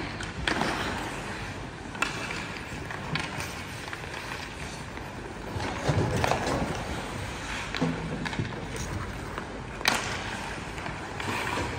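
Ice hockey play: skate blades scraping and carving on the ice in a steady wash of noise. Sharp clacks of sticks and puck come about two seconds in and again near the end.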